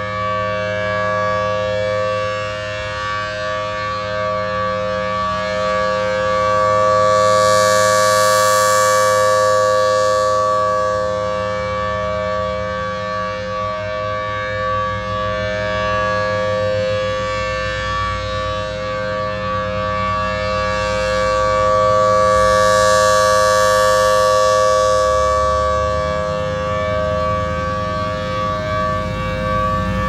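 Federal Signal B-Series Thunderbolt 1000T outdoor warning siren sounding its full alert, a steady two-note chord that holds its pitch. The sound swells and fades as the rotating horn sweeps past, loudest about 8 seconds in and again about 23 seconds in.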